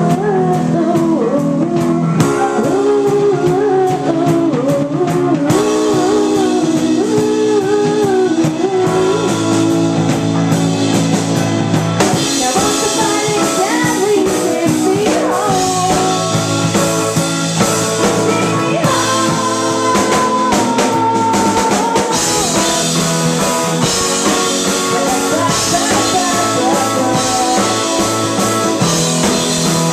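Live rock band playing: a woman singing lead over keyboards, electric guitar, bass guitar and drum kit. The cymbals grow louder and brighter about twelve seconds in.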